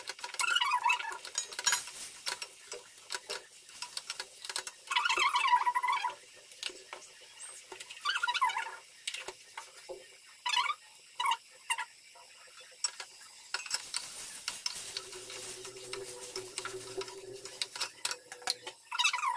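Wooden spatula stirring and scraping thick poppy-seed paste and pointed gourds around a stainless steel pot, in several short bursts of scraping with light knocks against the pot's side.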